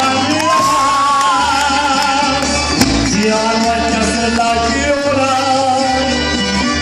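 Live mariachi ranchera: a male voice singing held, wavering notes over violins, trumpets and guitars.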